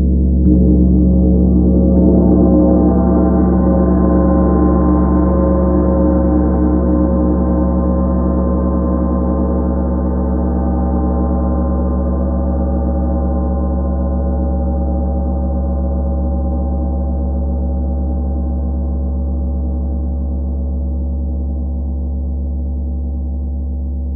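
A 32-inch Tree of Life gong struck with a soft mallet about half a second in. It swells over the next couple of seconds, then rings on with deep, many-layered tones and a long sustain, slowly fading.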